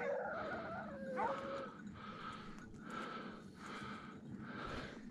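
Hunting hounds baying on a boar drive: a long, gliding howl that ends about a second and a half in, then a steady run of barks about two a second.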